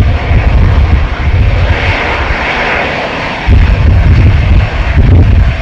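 Airbus A320-214's twin CFM56-5B turbofans running at taxi power as the airliner rolls toward the microphone: a steady rush of jet noise over a heavy, uneven low rumble. The rumble eases for about a second near the middle while the higher rush swells.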